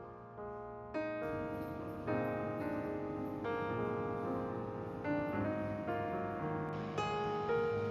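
Background piano music: a slow, gentle piece of sustained chords and single notes.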